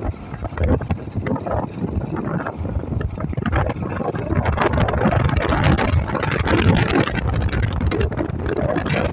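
Wind buffeting the microphone over the running engine of a moving Yamaha SR400, a single-cylinder motorcycle.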